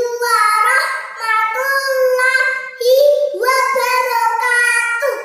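A young girl's high voice chanting in a sing-song melody, long drawn-out phrases with short breaks between them.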